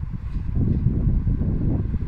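Low rumble of a diesel locomotive slowly approaching with a train of hopper wagons, mixed with wind buffeting the microphone.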